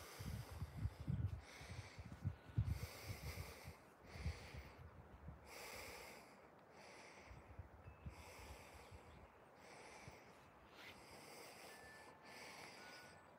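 Alaskan Malamute puppy sniffing and snorting with its nose in the dirt: short, faint breathy sniffs at an uneven pace of about one a second. A low rumble on the microphone runs under the first few seconds.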